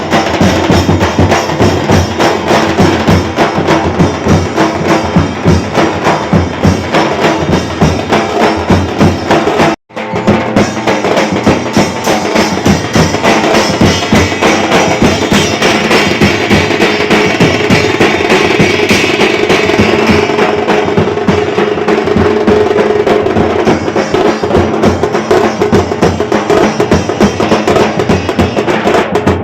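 Wedding brass band playing loudly, with the drums to the fore beating a fast, dense rhythm. The sound drops out for a moment about ten seconds in, then carries on.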